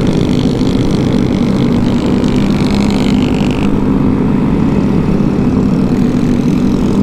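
Honda Grom's small single-cylinder engine running steadily at cruising speed, under a low wind rumble on the microphone. A higher whine over it drops away about three and a half seconds in.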